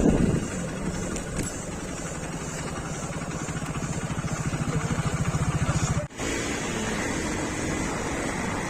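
Motorcycle engine running at low revs with an even pulsing beat that grows a little louder, broken by a brief sharp dropout about six seconds in.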